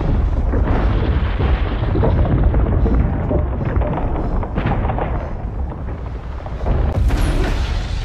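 Large explosion in a film soundtrack: a sustained deep rumble from a rising fireball with crackling debris over it, and a fresh surge with a sharper hiss about seven seconds in.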